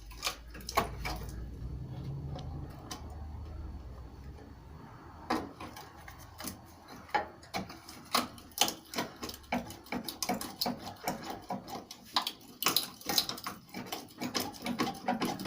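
Hand tools working a car's sill flange off through fiberglass: quick, irregular taps and clicks, several a second, that get busier about five seconds in. Before that there is a low rumble with only a few clicks.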